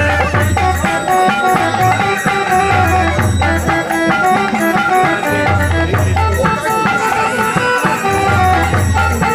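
Live devotional folk music: a melody instrument holding steady notes over groups of low drum strokes, with a fast rattling, jingling percussion keeping time.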